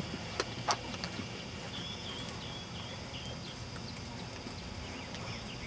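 A mare's hooves trotting on sand footing, giving soft, even hoofbeats, with two sharp clicks about half a second in.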